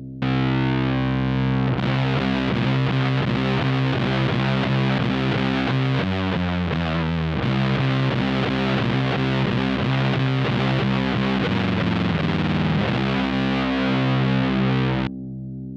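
Electric guitar playing a slow, heavy riff through a one-knob fuzz pedal into a valve amp, thick and distorted. The fuzz comes in just after the start and cuts off suddenly near the end, leaving a quieter ringing note.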